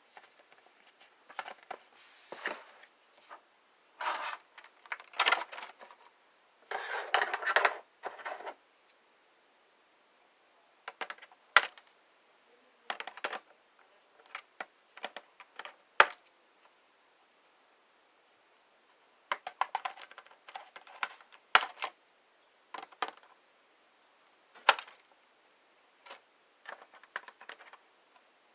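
A boxed Transformers action figure and its packaging being handled during unboxing: short bursts of rustling and scraping, with a few separate sharp plastic clicks.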